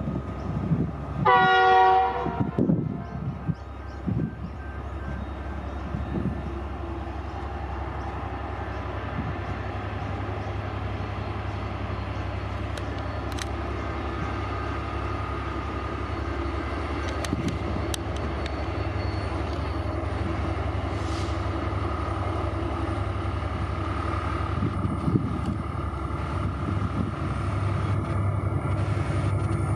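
A diesel freight locomotive sounds one horn blast of about a second, then its engine is heard approaching, a steady rumble that slowly grows louder.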